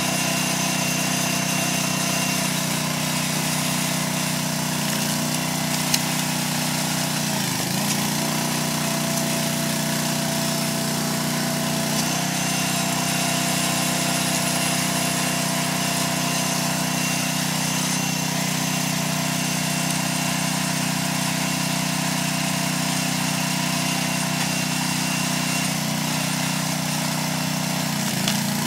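Small gasoline engine driving the hydraulic pump of a home-built log splitter, running steadily. Its pitch dips briefly about a third of the way in and again near the end, with a few light clicks.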